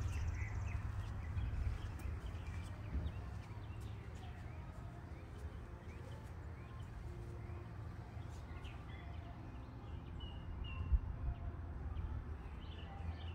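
Quiet outdoor ambience: a steady low rumble with scattered faint clicks and a few brief, faint high chirps.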